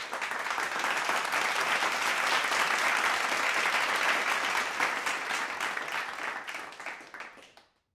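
Audience applauding, dense at first, then thinning to scattered claps and fading out near the end.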